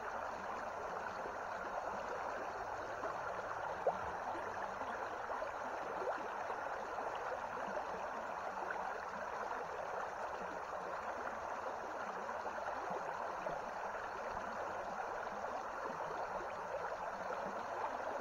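Shallow creek riffle running steadily over stones, an even rushing babble of flowing water, with a single small click about four seconds in.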